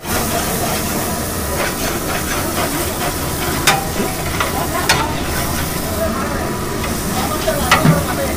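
A long metal ladle stirring a tomato-onion masala in a large aluminium cooking pot, scraping and clinking against the pot several times over the steady sizzle of the frying masala.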